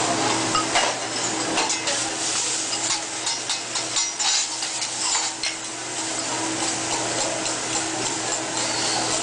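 Food sizzling on a hot griddle, a steady hiss broken by frequent short metal taps and scrapes of cooking utensils, over a steady low hum.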